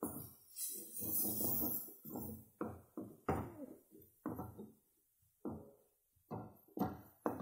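Chopped coconut tipped into a hot metal kadai with a brief hiss, then a wooden spatula stirring it through the masala, scraping and knocking against the pan in irregular strokes about two a second. There is a short lull around five seconds in.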